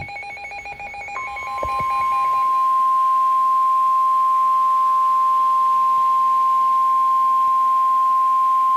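Emergency Alert System / NOAA Weather Radio warning signal: the end of a buzzy digital data burst, then about a second in a single steady 1050 Hz warning alarm tone that holds unbroken. It announces that a voice warning is about to follow.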